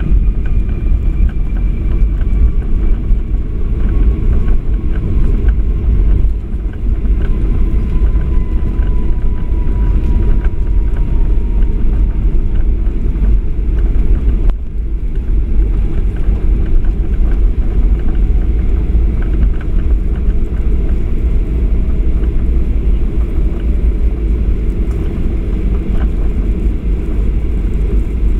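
Cabin noise of a Boeing 737-800 rolling along the runway after landing: a loud, steady low rumble of the wheels and airframe, with the whine of its CFM56 engines slowly falling in pitch as they spool down. A single knock about halfway through.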